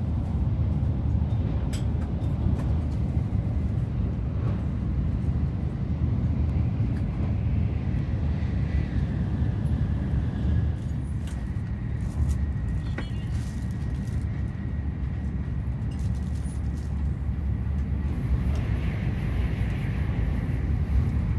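Steady low rumble of a Tokaido Shinkansen bullet train running at speed, heard from inside the passenger cabin, with a few faint clicks.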